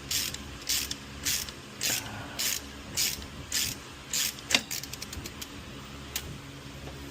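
Hand ratchet wrench being worked back and forth on a bolt, a little under two strokes a second. After about four and a half seconds the strokes stop with a sharp click and a quick run of light ratchet clicks, as if the loosened bolt is spun out.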